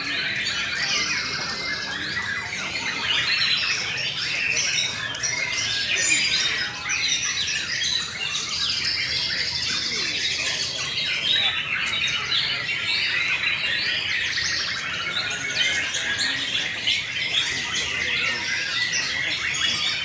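Many caged white-rumped shamas (murai batu) singing against each other in a song contest: a dense, unbroken mix of overlapping whistles, trills and chirps.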